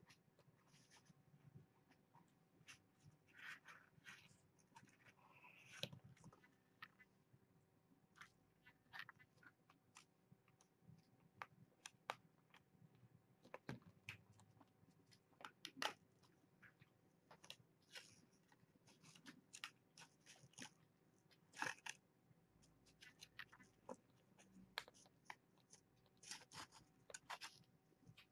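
Faint, irregular crunches and clicks, like kittens chewing dry kitten food.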